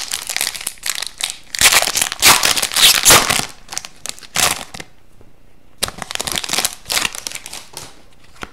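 Foil wrapper of an Upper Deck hockey card pack crinkling and tearing as the pack is ripped open and the cards are pulled out. The loudest crinkling comes about two to three seconds in; after a short lull near the middle the wrapper crinkles again.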